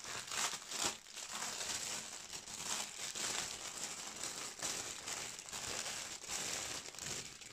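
Thin clear plastic packaging crinkling and rustling as it is pulled open and unwrapped from a bundle of small zip bags of diamond-painting drills. The crackles are irregular and a little louder in the first second.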